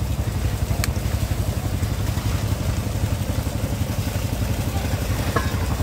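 Fishing boat's engine idling steadily, a fast, even low throb, with a single sharp click about a second in.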